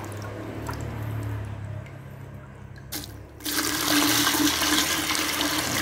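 Liquid soaking solution poured from a plastic bucket onto rice seed in another plastic bucket, a steady gushing splash that starts about three and a half seconds in, to submerge the seed for soaking.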